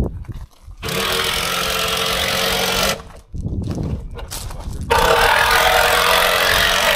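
A power tool runs in two steady bursts of about two seconds each, starting and stopping abruptly, during deck framing with lumber.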